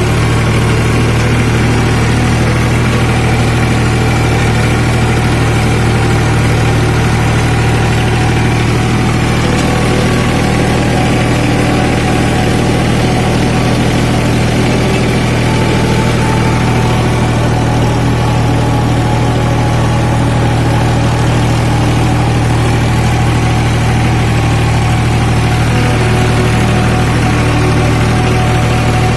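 Tractor's diesel engine running steadily with a deep, even drone and no change in speed, pulling a peanut digger through the crop.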